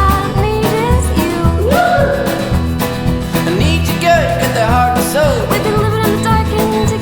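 Country-style music with a steady beat, guitar and a singing voice.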